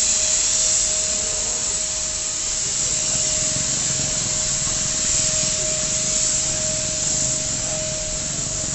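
Handheld electric sanitizer sprayer running, a steady motor whine over the hiss of disinfectant mist being sprayed onto luggage.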